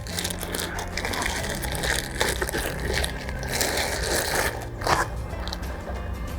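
Packing paper and wrapping being pulled off and crumpled by hand: a continuous crinkling rustle with a few sharper crackles, easing off about five seconds in.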